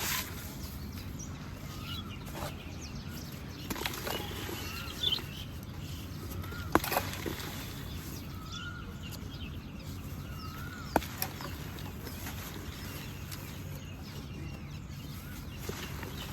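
Water trickling over small pebbles as a steady background wash. Short rising-and-falling bird calls come every few seconds, and there are two sharp clicks, about seven and eleven seconds in.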